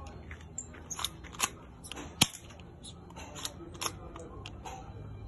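Spring-action metal Glock 17 replica airsoft pistol firing a 6 mm plastic BB with one sharp snap about two seconds in. Before the shot and again near the end come pairs of lighter clicks as the slide is worked by hand to cock the spring.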